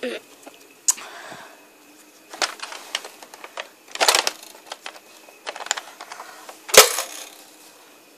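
A handful of sharp plastic clicks and knocks from handling the Nerf Vortex Vigilon disc blaster, as if opening it or loading a disc. There is a cluster about four seconds in and the loudest knock near the end.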